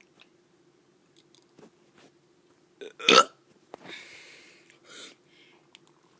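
A child deliberately burping: one short, abrupt burp about three seconds in, followed by a softer breathy sound.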